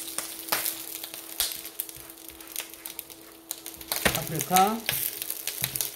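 Gloved hands crinkling a plastic bag and handling mini sweet peppers in a tray, giving a few sharp rustles and taps over a steady low hum. A man's voice comes in briefly about four seconds in.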